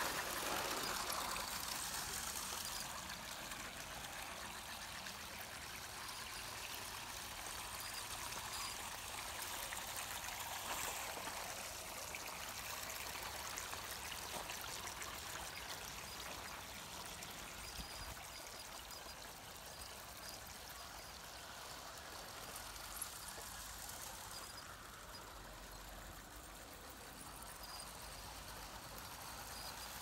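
Water trickling and splashing steadily down a small tiered garden cascade fountain.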